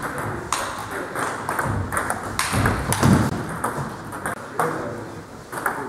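Table tennis balls clicking sharply off bats and table tops in rallies, irregular taps from this table and the neighbouring ones, with a louder dull thud about halfway through.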